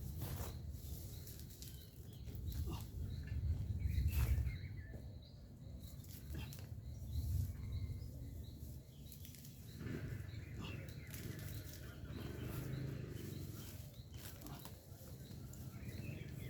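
Rustling and scattered irregular knocks over an uneven low rumble on the microphone, loudest about four seconds in.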